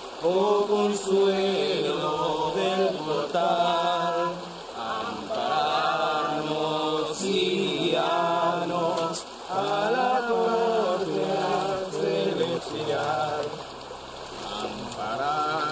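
Devotional chanting: phrases sung in long, wavering held notes, with short breaks between them.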